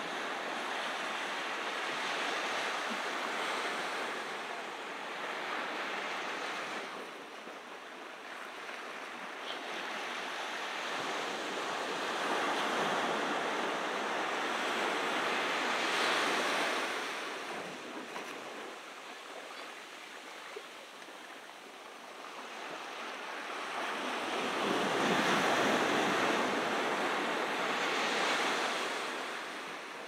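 Ocean surf washing onto a beach, the noise of the breaking waves swelling and fading in slow surges every several seconds, loudest near the end.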